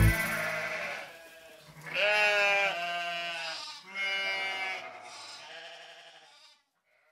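Sheep bleating: a long bleat about two seconds in and another about four seconds in that trails off.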